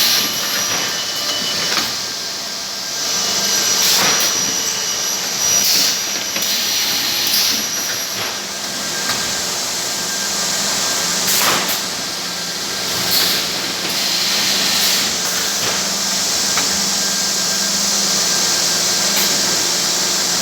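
Machinery of an automated CNC production line running with a steady loud rushing, hissing noise. A thin high whine runs through the first eight seconds or so, and short sharp hisses or clacks come every second or two.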